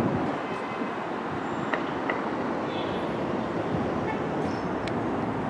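Steady outdoor city noise: street traffic below mixed with the distant running of an elevated subway train on its steel structure, with a few faint high ticks.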